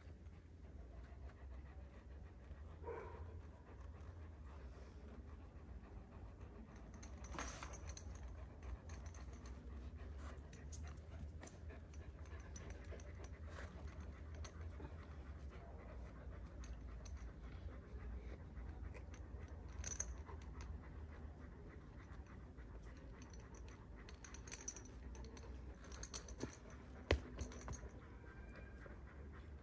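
A young Kangal dog panting softly, with a few light clicks and jingles near the end.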